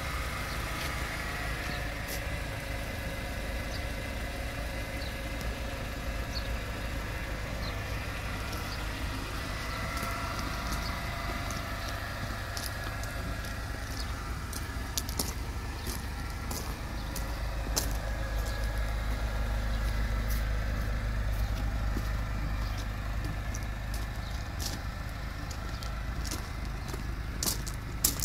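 2009 Renault Sandero 1.6's four-cylinder petrol engine idling steadily, a little louder past the middle. A few sharp clicks near the end.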